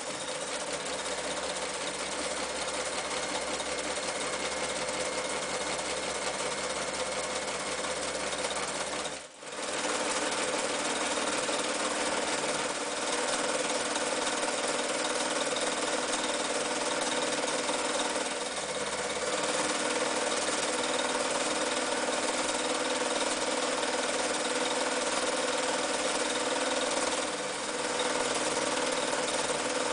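Janome New Home 552 electric sewing machine running steadily while sewing decorative stitches through fabric. It stops for a moment about nine seconds in, then runs on, easing slightly twice more later on.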